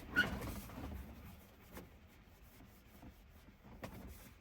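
Paper towel rubbing and wiping across a car stereo's touchscreen as it is cleaned with glass cleaner, with a couple of light clicks. A brief sound with a short high tone comes just after the start.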